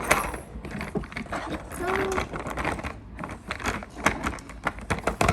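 Irregular clicks and light knocks of plastic Play-Doh toy parts being handled and pressed.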